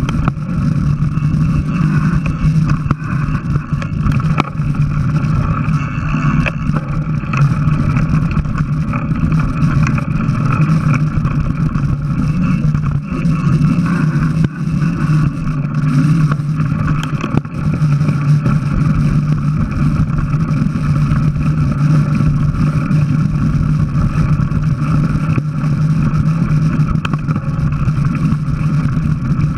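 Steady rumble of a mountain bike rolling fast along a packed-dirt trail, tyres and frame noise picked up by a camera mounted on the bike.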